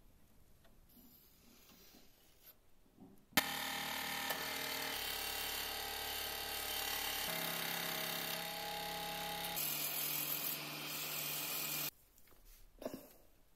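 Electric scroll saw running and cutting a small piece of thin wood: a steady motor hum with the blade's rasp. It starts abruptly about three seconds in, its tone shifts a few times, and it stops abruptly near the end. Quiet handling noise comes before it, and a small knock after.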